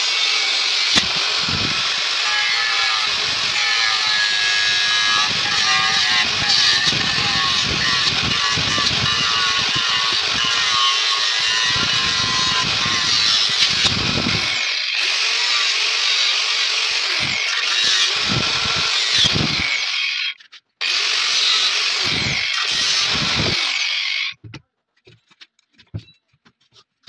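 Angle grinder with a cut-off disc slicing through the metal body of an AKM magazine. Its high whine sags each time the disc bites. It stops briefly about 20 seconds in, cuts again for a few seconds, then shuts off near the end.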